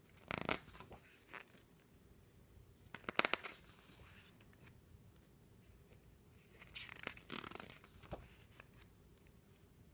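Pages of a hardcover picture book turned by hand: three faint paper rustles, about three seconds apart, with a small tap near the end.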